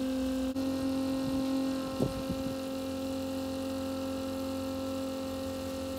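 SEAFLO 12-volt macerator pump motor running steadily with a constant electric hum while pumping out an RV's black water tank, with a short bump about two seconds in.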